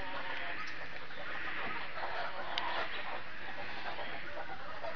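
Chickens clucking softly and intermittently, with a brief sharp click about halfway through.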